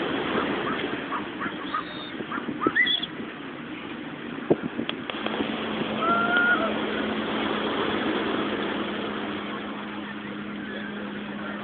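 Surf washing in under a steady rush of noise, with a few short distant cries. From about five seconds in, a steady low motor hum joins it.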